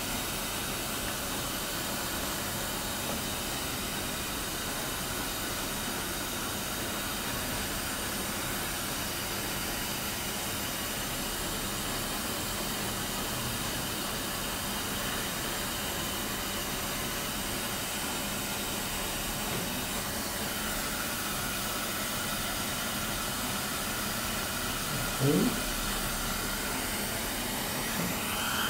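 Steady hiss of background noise, with one brief rising sound near the end.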